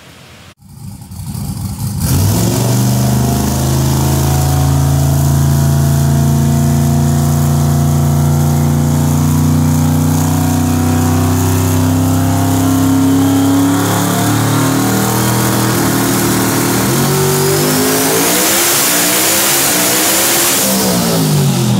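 Twin-turbo 438 cubic-inch billet LS small-block V8 of a Corvette C6 Z06 drag car running on a hub dyno. It comes up about a second in and holds a steady engine speed for over ten seconds. It then revs up hard with a high whine rising alongside, and drops off sharply right at the end.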